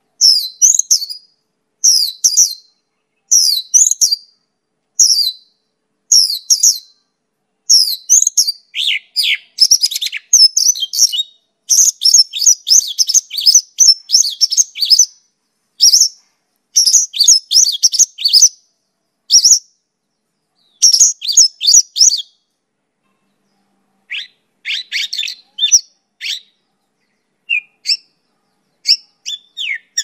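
Mongolian lark singing: short bursts of high, rapidly varied chirping phrases about once a second at first, then a dense run of notes through the middle, a short pause near two-thirds through, and more scattered phrases near the end.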